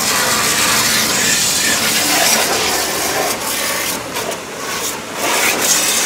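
High-pressure washer jet blasting water onto a scooter's body, a loud steady hiss and spatter of spray that dips briefly about four seconds in.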